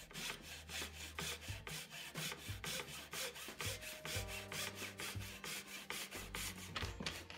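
Japanese Z-saw (pull saw) cutting through a wooden chair part with quick, even rasping strokes, about three to four a second.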